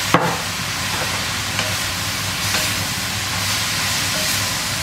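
Stir-fry sizzling steadily in a hot cast iron wok, the freshly added cooking wine hissing off as steam while it is stirred. A sharp knock sounds just after the start.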